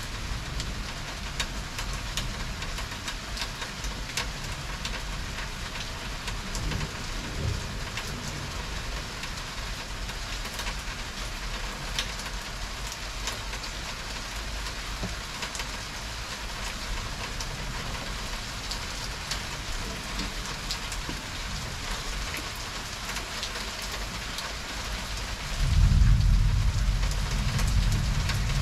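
Heavy rain falling steadily in a thunderstorm, with individual drops ticking sharply on nearby surfaces. A loud low rumble of thunder sets in suddenly near the end.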